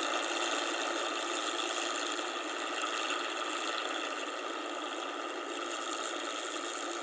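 Rice combine harvester running: a steady mechanical drone of engine and machinery with several steady tones over a broad hiss, easing slightly in level toward the end.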